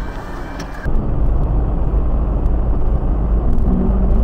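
Engine and road rumble from inside a moving vehicle, as picked up by a dashcam. The sound changes abruptly about a second in, and a low steady hum comes in near the end.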